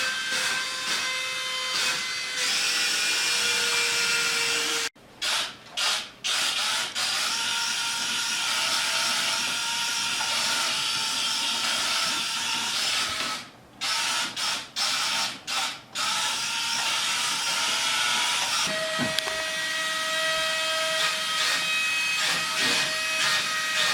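A Tonor wall-climbing RC car's suction fan and small electric motors running with a steady high whir. The sound cuts out abruptly several times for a fraction of a second, twice in clusters.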